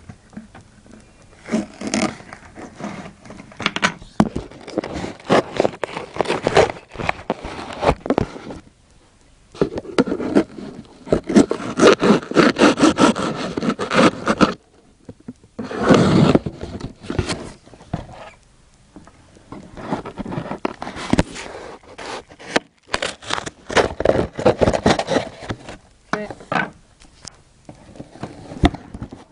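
iPod shuffle packaging being handled and opened by hand: irregular bouts of scraping and rustling with short pauses, loudest in a long stretch near the middle.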